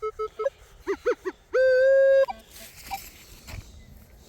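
Electronic beeps and tones from a Minelab Equinox metal detector. A run of short, evenly spaced beeps is followed by three quick warbling tones about a second in, then one longer steady tone, which is the loudest.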